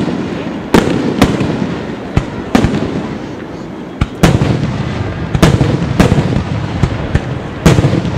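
Aerial firework shells bursting overhead: an irregular string of about a dozen sharp bangs, some in quick pairs, with a rolling rumble between them.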